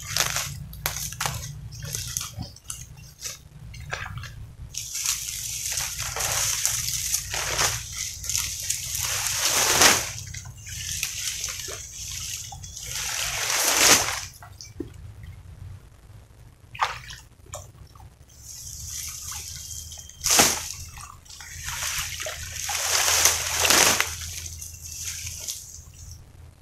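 Shallow water sloshing and splashing as a person wades through a ditch and hauls out a wire-mesh fish trap, coming in several swelling surges. Sharp crackles of dry palm fronds being pulled aside come in the first few seconds.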